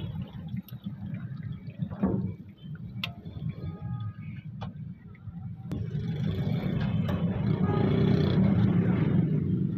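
Metal cooking utensils (a perforated skimmer and flat spatula) clinking sharply against a frying wok and a perforated steel tray, about five times, over a steady low rumble that grows louder in the second half.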